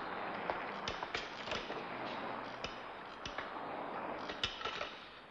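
About a dozen light clicks and taps at irregular intervals over a steady background hiss, fading slightly near the end.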